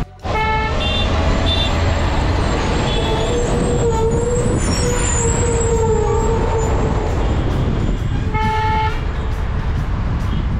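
Steady wind and road noise of a vehicle driving downhill on a wet mountain road. A vehicle horn toots briefly about half a second in, while overtaking a pickup truck, and again about eight seconds in.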